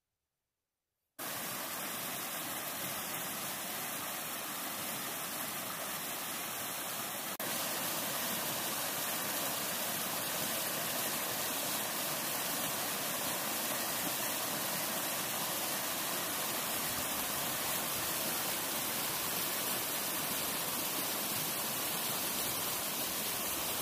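Creek water rushing over rocks and logs in small rapids: a steady, even rush of white water that gets a step louder about seven seconds in. The first second is near silence.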